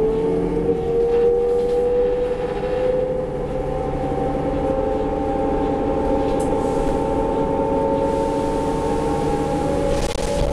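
Inside a 2004 New Flyer D40LF transit bus under way, with its Cummins ISL diesel and ZF Ecomat automatic transmission pulling. A steady drivetrain whine rises slowly in pitch as the bus gathers speed, over a low engine rumble.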